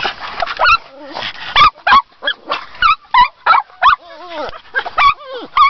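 A pug giving rapid high-pitched yips and whines, about two or three short calls a second, with a couple of longer falling whines.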